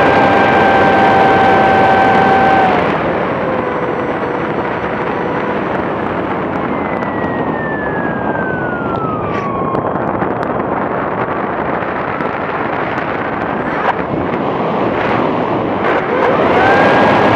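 RC model plane's motor and propeller heard from a camera on the fuselage, over a constant rush of wind. A steady high whine drops in pitch and level about three seconds in as the throttle comes back, leaving mostly wind rush, with a couple of sharp knocks near the end. The whine rises back to full pitch just before the end as the throttle is opened again.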